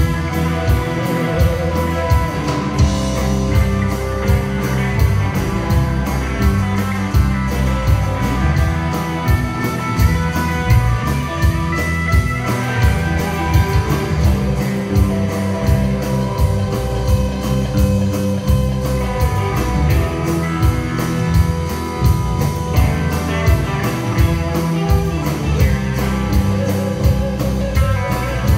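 Live rock band playing an instrumental stretch: several electric and acoustic guitars over bass and a drum kit keeping a steady beat.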